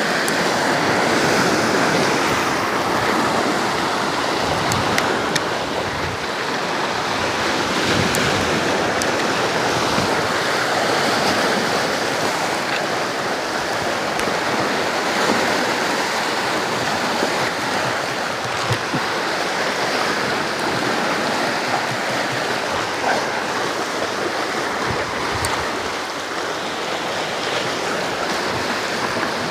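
Steady wash of sea surf against shore rocks.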